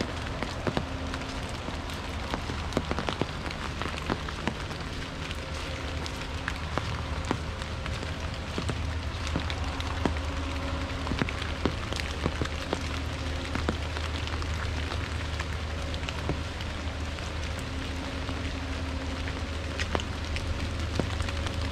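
Rain falling on an umbrella: many sharp single drop taps over a steady hiss of rain, with a low steady hum underneath.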